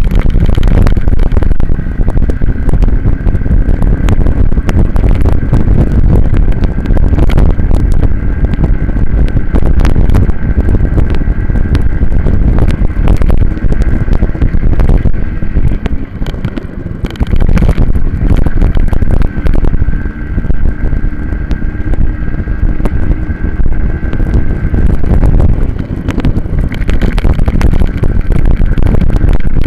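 Onboard sound of a racing minibike running at speed: its engine note buried under loud wind buffeting on the camera's microphone, with frequent sharp knocks and rattles.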